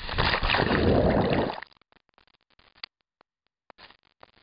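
Loud rush of water noise at a waterfall pool, cutting off suddenly after about a second and a half, followed by near silence with a few faint clicks.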